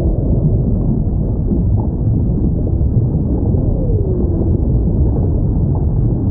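Underwater recording of a whale: steady low rumbling water noise, with one call that slides down in pitch about three and a half seconds in.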